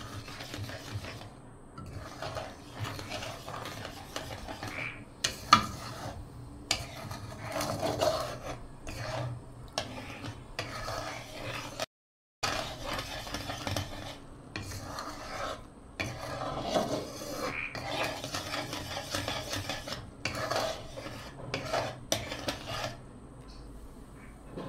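A flat metal spatula scraping and stirring boiling sugar syrup around a pan in uneven rasping strokes, with a brief dropout about halfway. The syrup is still thickening toward the one-string stage.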